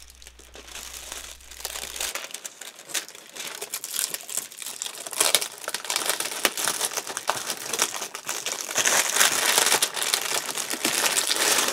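Cellophane wrapping being pulled and crumpled off a boxed set: a busy, irregular crinkling and crackling that gets louder in the last few seconds.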